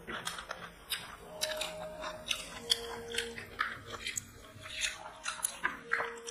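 People eating chicken biryani by hand: chewing and mouth sounds, a run of irregular small clicks.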